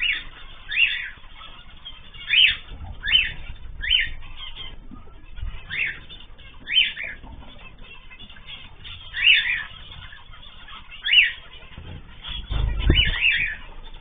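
Cage birds giving short, sharp calls over and over, roughly one a second, with a dull low rumble near the end.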